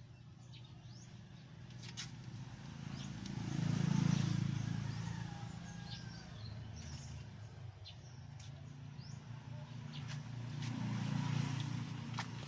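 A low vehicle engine hum that swells and fades twice, loudest about four seconds and again about eleven seconds in, like vehicles passing, with birds chirping throughout.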